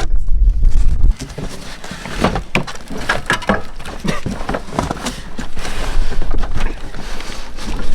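Cardboard box and packaging being opened and handled, with irregular crackling, rustling and knocks. A low rumble in the first second stops abruptly about a second in.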